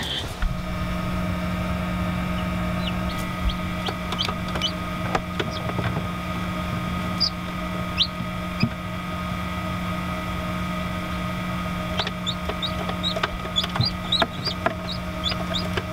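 A newly hatched chick peeping inside an egg incubator: short, high chirps, a few scattered at first and then a quick run of them near the end, over a steady electrical hum.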